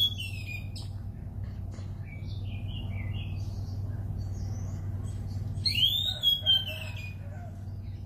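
Anis cendana (orange-banded thrush), a caged songbird, singing: a few short, quieter whistled notes in the first half, then a loud arching whistled phrase with trailing notes about six seconds in. A steady low hum runs underneath.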